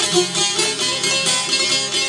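Albanian folk instrumental on çiftelis, two-stringed long-necked lutes, plucked together in a quick, steady run of notes without singing.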